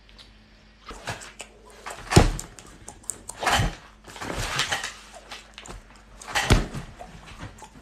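Notebooks and papers handled on a tabletop: a few short knocks and bangs, the loudest about two seconds in, with rustling of paper in the middle.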